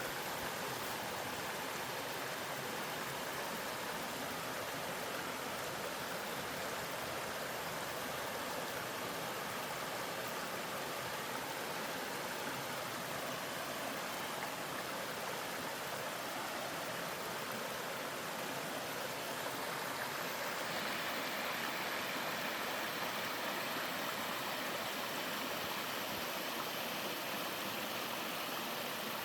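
Water of a small waterfall in a mountain stream, falling and rushing in a steady, even splash. It grows a little louder and brighter about two-thirds of the way in.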